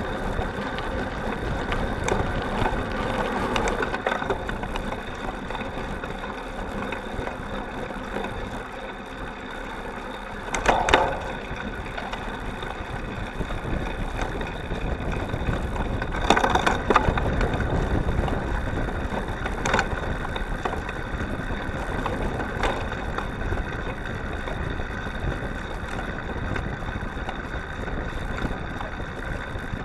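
Cyclocross bike ridden hard over a dirt path and bumpy grass, heard through a camera mounted on the frame's seat stay: a steady rattle and crunch of knobby tyres, chain and frame. Loud jolts from bumps come at about 11 seconds and again around 17 seconds.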